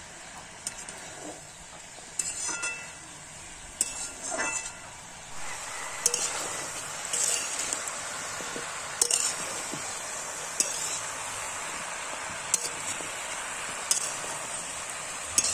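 Metal cookware clinking a few times, then, about five seconds in, a steady sizzle of food frying in a pan begins, with the stirring spoon knocking against the pan every second or two.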